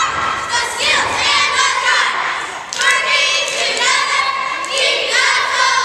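A girls' cheerleading squad shouting a cheer in unison, in short rhythmic phrases, in a school gym.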